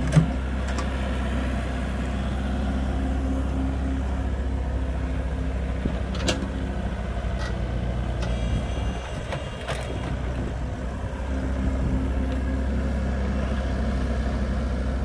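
Mini excavator's diesel engine running steadily close by as it digs and pushes soil, with a few sharp knocks. Its engine note dips briefly about nine seconds in.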